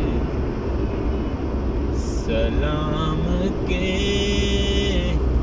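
Steady low rumble of a car's engine and tyres heard inside the moving car. A pitched voice or music comes in faintly over it about halfway through and runs for a couple of seconds.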